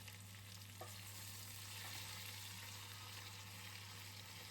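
Chopped onions and tomatoes sizzling steadily in hot oil in a cooking pot, as they sauté for a biryani gravy.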